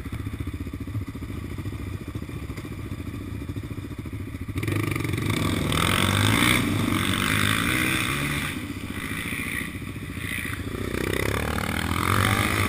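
Yamaha Raptor 700 quad's single-cylinder engine running at low revs over a rough dirt track, then opened up about four and a half seconds in, its pitch rising and falling as the throttle works, with a rushing noise from the ride over it. The engine revs up again near the end.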